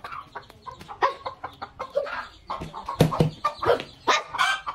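Black hen clucking repeatedly as she walks, mixed with the thin high peeps of her chicks. A sharp knock comes about three seconds in.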